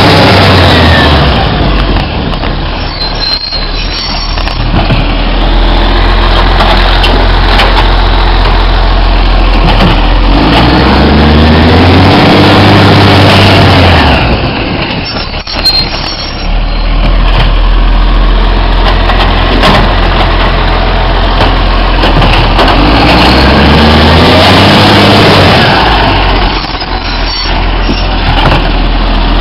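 Iveco Acco garbage truck's diesel engine running loud and close, revving up twice with a rising pitch, about ten seconds in and again a few seconds before the end.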